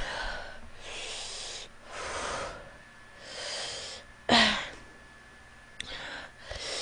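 A woman breathing hard through her open mouth in airy huffs, about one a second, from the burn of very spicy chicken wings; one sharper, louder gasp comes about four seconds in.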